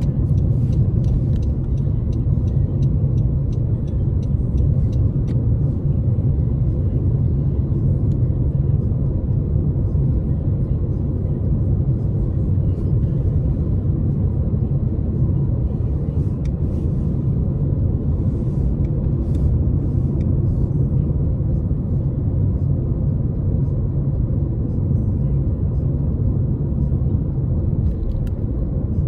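Steady road rumble of a moving car heard inside the cabin: engine and tyre noise with no change in pace, and a run of light ticks in the first few seconds.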